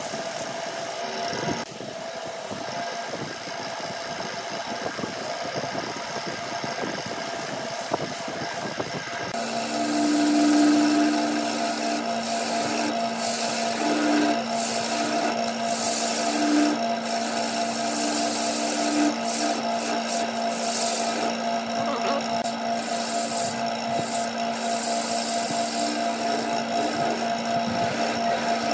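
Wood lathe spinning a turned piece: sandpaper rubbing on the turning wood for the first nine seconds or so. Then a hand turning tool cuts into the spinning spindle end, over a steady hum from the lathe and an on-and-off tone from the tool.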